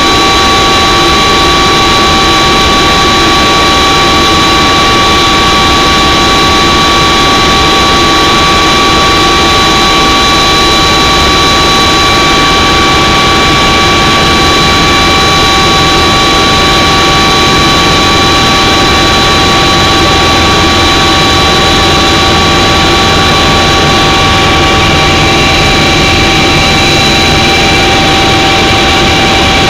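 Aircraft cabin noise in flight: a loud, unchanging rush of engine and air noise with several constant high whining tones over it.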